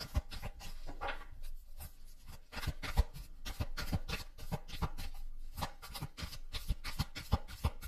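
Tarot cards being handled: irregular light taps and rustling rubs of card stock, several a second, with one louder tap about three seconds in.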